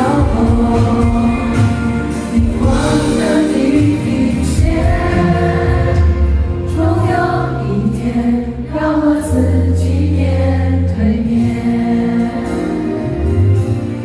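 A man singing a pop song live into a handheld microphone, with instrumental backing.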